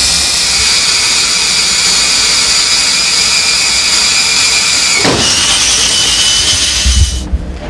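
Electric drill running under load at slow speed with heavy feed, its high-moly tool-steel twist bit cutting into a half-inch-thick block of tool steel: a steady high whine. About five seconds in the pitch drops sharply, then the drill runs on and stops shortly before the end, followed by a few low thumps.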